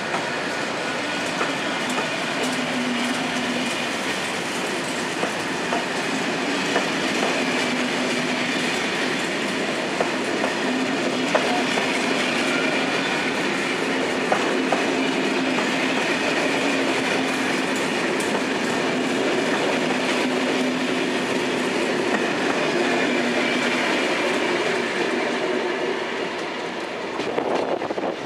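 SNCF passenger coaches behind a BB 26000 electric locomotive rolling past at close range, a steady rumble of wheels on rail with scattered clicks. The sound falls away near the end as the last coach goes by.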